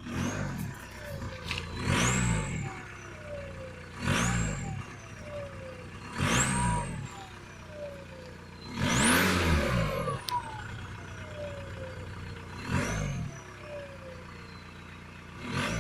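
Volkswagen Golf Mk4 1.9 TDI diesel engine being revved in repeated short blips, about seven in all. Each blip brings a high turbocharger whistle that climbs quickly and then falls away slowly as the turbo spools down. The longest, highest-pitched rev comes about nine seconds in.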